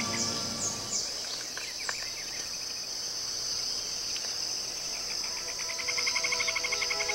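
Outdoor insect chorus: a steady high-pitched insect drone, with a rapid pulsing chirp rising in the second half. A few short descending bird whistles come in the first second.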